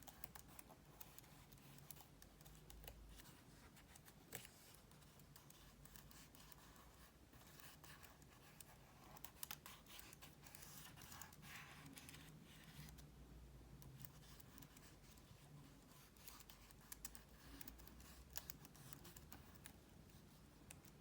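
Faint scratching and scattered light clicks of a cotton bud rubbed over MacBook Pro keyboard keys.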